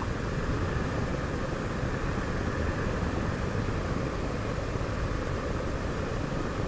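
Steady wind rush and road noise on the camera microphone of a moving motorcycle, with a low, buffeting rumble.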